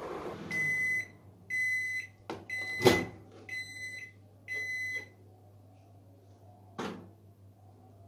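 Microwave oven finishing its cycle as the timer reaches zero: the running hum stops, then it beeps five times, about once a second, at a steady high pitch. The door latch clicks open loudly during the third beep, and a short knock comes near the end.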